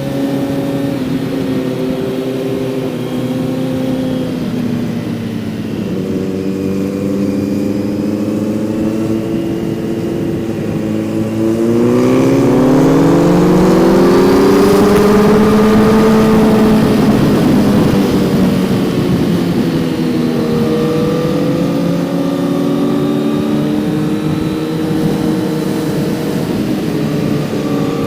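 Kawasaki Z900's 948 cc inline-four engine, heard from onboard while riding: it holds a steady pitch, then about twelve seconds in the throttle opens and the engine rises in pitch and gets louder for several seconds before easing back to a steady cruise.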